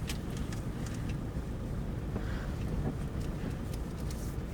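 Toyota Fortuner's 2KD-FTV 2.5-litre turbodiesel running as the SUV creeps along, heard inside the cabin as a steady low rumble with a few light clicks.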